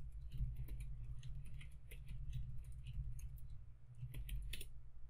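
Typing on a computer keyboard: quick, irregular runs of key clicks over a steady low hum.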